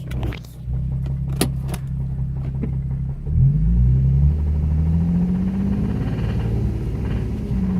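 Nissan 350Z's VQ35DE 3.5-litre V6 running with a spun rod bearing, the damage that gives it a rod knock. It runs steadily with a few sharp clicks in the first two seconds, then the revs climb about three seconds in and keep slowly rising.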